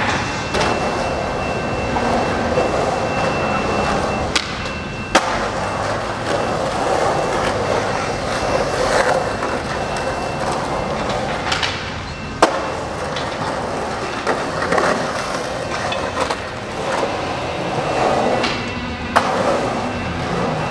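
Skateboard wheels rolling on concrete, with several sharp clacks of the board hitting the ground.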